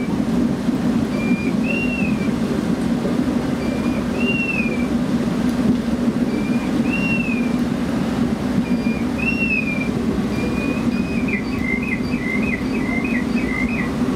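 Steady rush of the Hochstrahlbrunnen's high jets and falling water. A bird calls over it about every two and a half seconds, a short note followed by a rising-and-falling whistle, and gives a quick trill of about six notes near the end.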